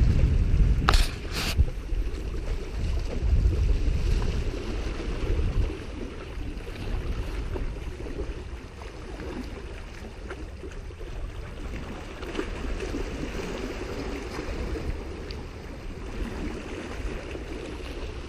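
Wind buffeting the microphone, heaviest in the first several seconds and easing after, over small waves washing against the rocky shoreline. Two sharp clicks about a second in.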